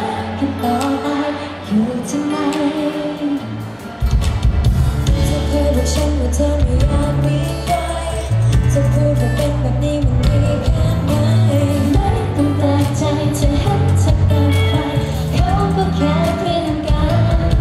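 Live Thai pop song through a PA system: a woman sings into a microphone over pop accompaniment. About four seconds in, the bass and drums come in and the music gets louder.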